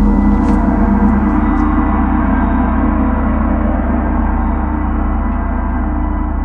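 A deep metal gong ringing on after a single strike, many overlapping steady tones with a strong low hum, slowly fading.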